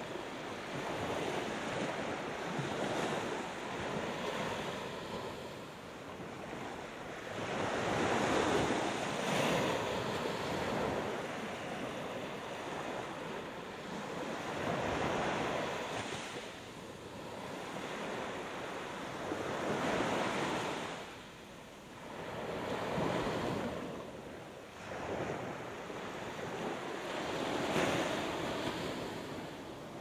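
Gulf of Mexico surf: waves breaking and washing up the beach, the sound swelling and fading every five to seven seconds.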